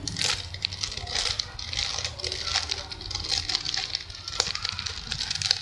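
Mirror cube being turned quickly by hand: a rapid, irregular run of plastic clicks and rattles as its layers turn while an F2L algorithm is carried out.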